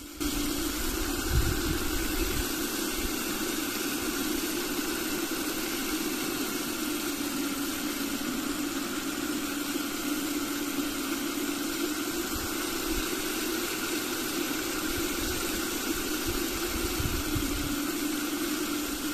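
A small 3D-printed Pelton-wheel hydro generator, a NEMA17 stepper motor used as a generator, spinning in the jet from a garden hose. It makes a steady hum over the hiss of spraying water while it is under load charging a phone.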